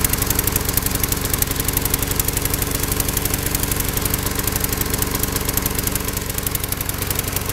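A walk-behind lawn mower's 6 hp Briggs & Stratton engine running steadily, with an even, rapid firing beat.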